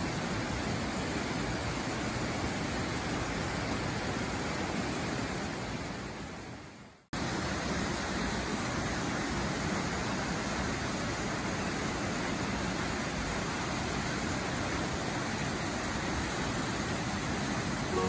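Waterfall plunging into a rock pool, a steady rush of water. About five seconds in it fades away to silence, then comes back suddenly at full level a second or two later.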